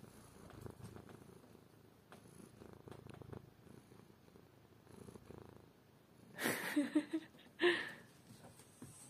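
Domestic cat purring faintly close to the microphone, a soft pulsing rumble. Two brief, louder sounds break in about six and a half and seven and a half seconds in.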